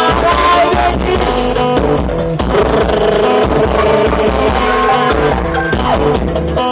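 Live band music with a prominent plucked guitar line over a steady bass and drum beat.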